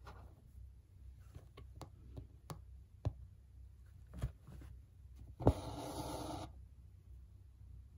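Embroidery needle clicking through hat fabric held in an embroidery hoop, a few small ticks, then white embroidery floss drawn through the fabric with a scratchy rasp of about a second, a little past halfway.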